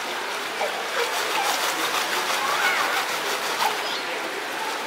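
Water running steadily through a wooden gem-mining sluice, with small splashes as a sifting screen box is worked in the flume. Faint voices in the background.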